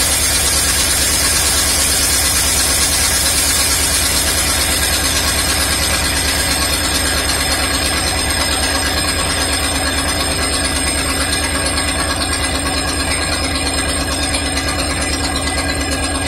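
1974 Condor II motorhome's carbureted gasoline engine idling steadily, heard close up at the open engine compartment. It has just been started and is running pretty good.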